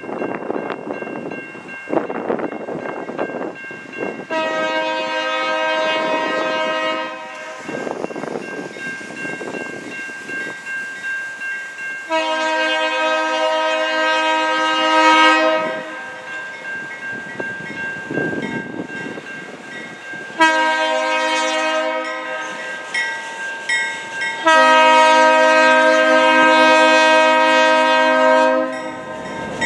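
Diesel locomotive horn blowing the grade-crossing signal: two long blasts, a short one, then a final long blast that is the loudest. Under it the crossing's electronic bells ring steadily.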